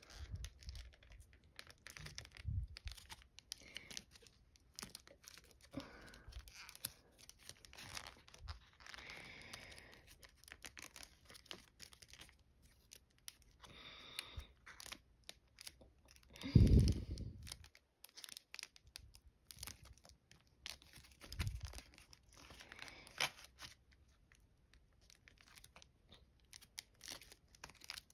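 Crinkling and crackling of a folded metallic-foil paper model as fingers pinch and shape it, in short irregular crackles. A loud dull thump comes a little past halfway, and a softer one a few seconds later.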